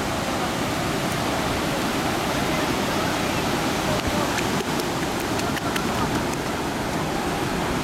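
Steady rush of ocean surf, with shallow waves washing over the sand at the water's edge.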